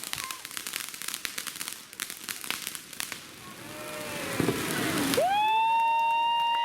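Consumer fireworks crackling in quick, dense pops, fading out after about three seconds. About five seconds in, a loud high whistling tone swoops up and holds steady.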